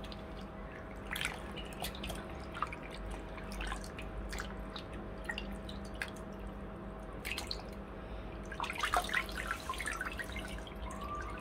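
Water dripping and splashing as pieces of beef are rubbed and squeezed by hand in a pot of water in a sink, the splashing busiest about nine seconds in, over a faint steady hum.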